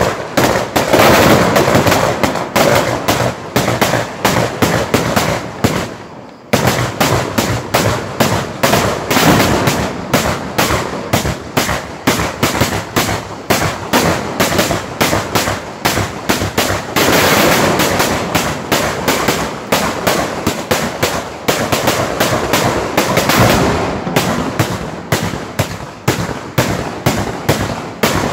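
A long rapid chain of loud bangs from a row of small gunpowder mortars (traditional Ligurian mortaletti) going off one after another, several shots a second, with a brief break about six seconds in.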